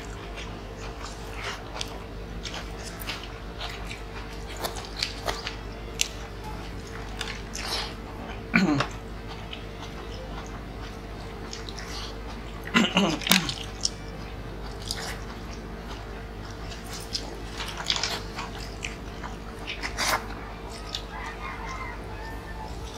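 Close mouth sounds of people eating by hand: chewing, lip smacks and scattered wet clicks, with a short hum-like vocal sound about nine seconds in and again around thirteen.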